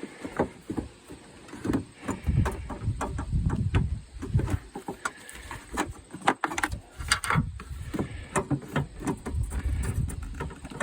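Irregular hard plastic clicks and knocks from a 4th-generation Camaro headlight assembly being twisted and pulled forward out of its mounting tabs, with low rumbling handling noise in between.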